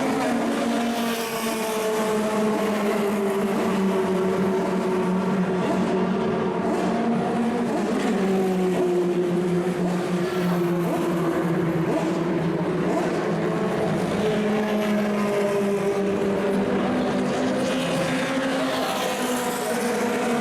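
Racing engines of 1960s cigar-shaped Formula 2/Formula 3 cars running hard, their pitch rising and falling with speed and gear changes, with more than one engine heard at once.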